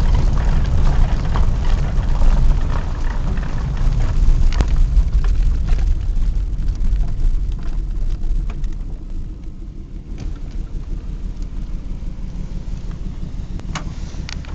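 Car driving over a rough, bumpy road, heard from inside the cabin: a low engine and road rumble with frequent knocks and rattles as the suspension takes the bumps. The rumble and knocking drop off and grow quieter about nine seconds in.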